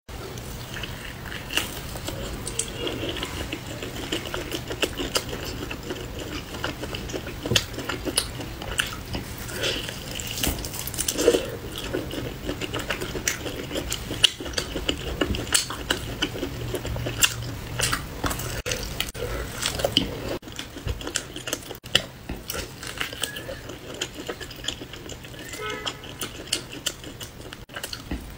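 Close-up eating sounds: biting and chewing a large piece of braised poultry on the bone, with wet mouth smacks and many short clicks.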